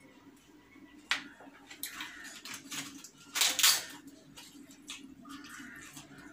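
A crisp papadum being broken up by hand: several short crackling crunches, the loudest about three and a half seconds in.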